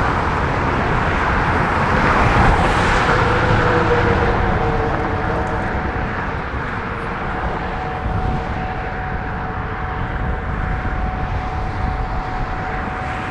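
Traffic passing on a highway beside the roadside stop, one vehicle swelling past a few seconds in, over a steady engine hum.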